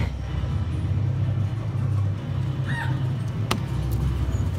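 Go-karts running on an indoor concrete track: a steady low rumble that swells and dips. A short high cry comes about two and a half seconds in, and a sharp click follows about a second later.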